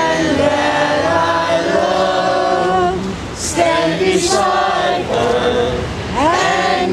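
A group of people singing together without accompaniment, holding long notes in phrases broken by short pauses.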